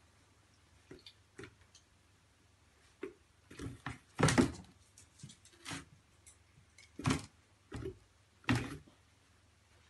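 Irregular soft thumps and scuffles from a cat and a puppy wrestling on a padded pet bed, the loudest knocks coming about four seconds in and again near seven and eight and a half seconds.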